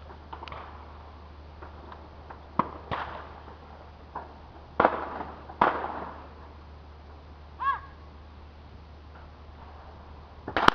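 Shotgun shots at a sporting clay shoot, each with a short ringing tail: two fainter shots a few seconds in, a louder pair about a second apart in the middle, and another loud shot at the very end. A brief high chirping call sounds between them.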